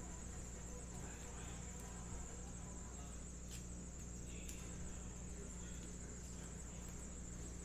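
A steady high-pitched tone with a low hum beneath it, and faint soft clicks and slides of trading cards being handled and laid down on a table, a couple of them in the middle.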